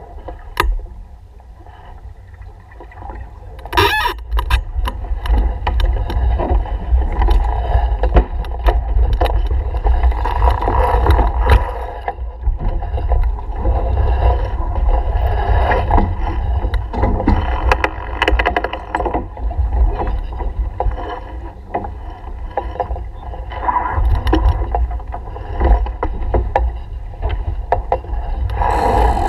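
Wind buffeting the camera's microphone and water washing along the hull of a small keelboat under sail, getting louder about four seconds in, with scattered clicks and knocks.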